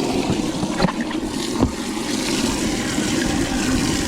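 Bass boat running across the water, with wind rushing over the microphone and two brief knocks about a second in.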